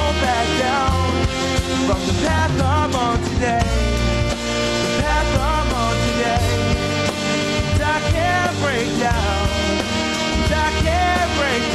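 Music: a song with a steady beat, bass and a wavering lead melody, with no words sung.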